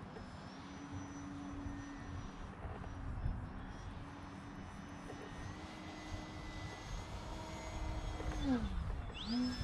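Multiplex AcroMaster Pro RC model plane's electric motor and propeller whining steadily in flight. Near the end the pitch falls away sharply, then climbs quickly back up.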